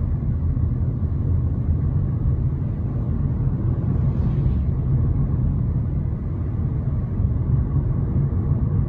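Steady low rumble of a car driving along a road, with engine and tyre noise and no change in pace.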